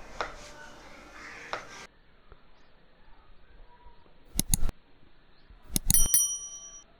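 Kitchen utensils and dishes clinking: a quick double clink, then a louder cluster of clinks a second and a half later that leaves a short metallic ring.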